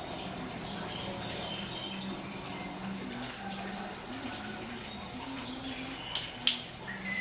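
Caged songbird singing a fast, evenly repeated trill of high notes, about five or six a second, that stops about five seconds in; two short sharp chirps follow near the end.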